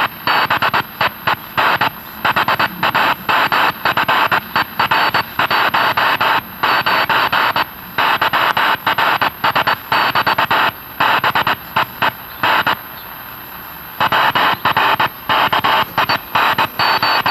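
Morse code received on a 1960s General Electric World Monitor shortwave transistor radio, coming from its speaker as keyed bursts of short and long lengths with one longer pause about three-quarters of the way through. Over it runs a thin steady high-pitched squeal near the top of hearing, about 12 kHz: the radio's amplifier oscillating, a fault that draws a lot of current.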